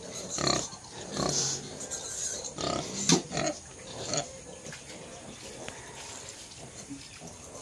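Native pigs giving a run of short calls, most of them in the first four seconds, then only faint sounds.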